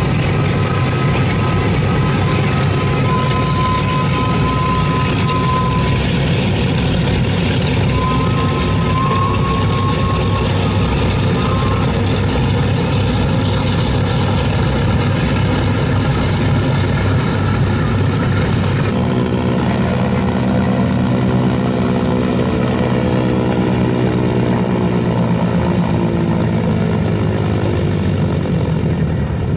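Boeing B-29 Superfortress's four radial piston engines running with propellers turning, a steady loud drone. A thin whistling tone rides over it for the first dozen seconds. About two-thirds of the way through the sound changes abruptly to a duller, more distant drone with a pitched hum that wavers slightly.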